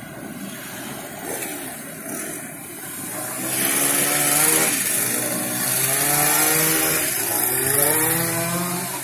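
VW Combi van's air-cooled flat-four engine pulling up a steep slope, low at first, then louder from about a third of the way in as it passes close, its pitch rising again and again as it revs.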